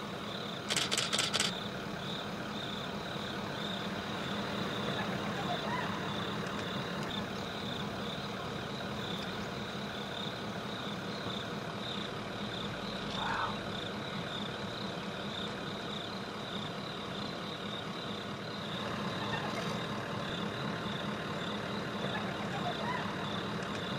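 Steady hum of an idling vehicle engine, with a high, evenly pulsing chirr of insects over it. A quick run of clicks comes about a second in.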